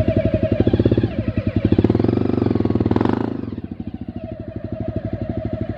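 Motorcycle engine idling with a fast, even beat, revved up briefly about two seconds in and then dropping back to idle.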